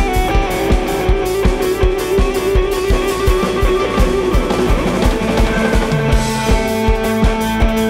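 Live rock band playing an instrumental jam: electric guitar holding long notes over a steady drum beat of about three hits a second.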